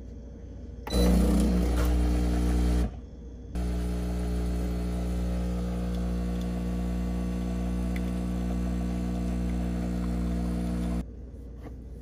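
Home espresso machine's pump buzzing as it brews: a louder run of about two seconds starting about a second in, a brief pause, then a steady buzz of about seven seconds while espresso pours into the mug, cutting off about a second before the end.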